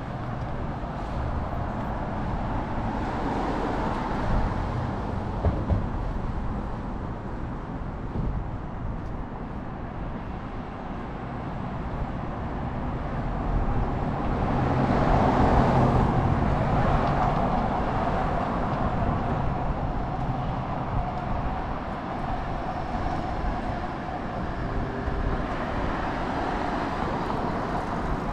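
City street traffic: motor vehicles passing one after another over a steady road rumble. The loudest one goes by about halfway through.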